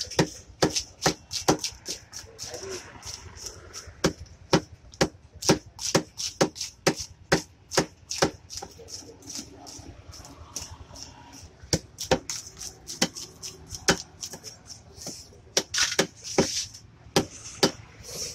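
A cleaver striking and scraping fish on a wooden log chopping block as the fish are scaled and cut: sharp knocks and scrapes, about two a second.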